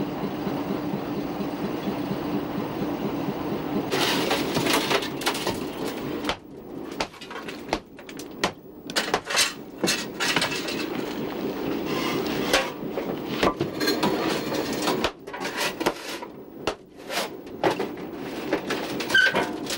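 Irregular knocks, clanks and scrapes of coal briquettes and a fireman's tools on a steam locomotive's footplate while it is being steamed up. A steady rushing noise fills the first few seconds.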